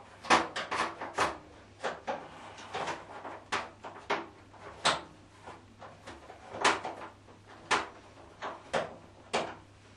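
Irregular metal clinks and knocks, about fifteen in all, from hooking the upper suspension springs between a washing machine's tub and its steel cabinet.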